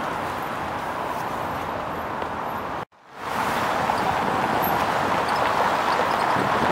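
Steady outdoor city ambience of a wide paved square, mostly the hum of distant traffic. About halfway through it cuts out for a moment and fades back in a little louder.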